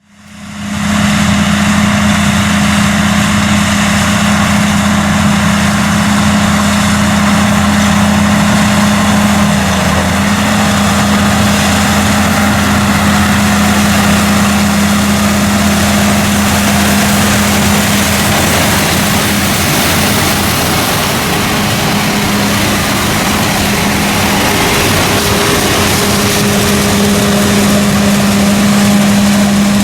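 Tractor diesel engine and pull-type bean combine running steadily in the field: a constant engine hum with a dense mechanical hiss from the machinery over it. It fades in over the first second.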